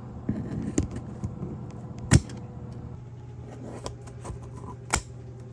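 Handling of the cardboard MRE case: scattered light clicks and knocks, with two louder knocks about two and five seconds in, over a steady low hum.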